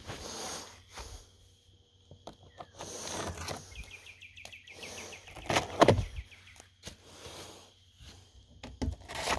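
Outdoor background noise with a bird's rapid chirping trill for a couple of seconds about four seconds in, and a few sharp knocks near the middle.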